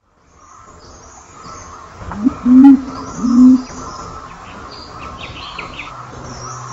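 Pigeon cooing: two low coos, each rising at the onset, about two and three seconds in, over steady outdoor background with fainter higher chirps.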